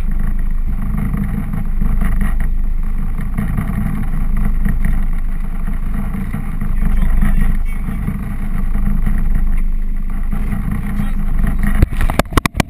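Fishing boat's engine running with a low, steady rumble, and a quick cluster of sharp knocks near the end.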